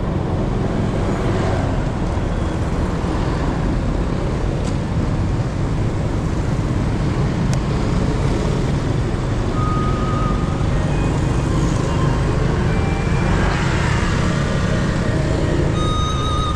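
Steady rumble and road noise of a vehicle being driven through city traffic. A short high beep sounds about ten seconds in, and a few short high tones begin near the end.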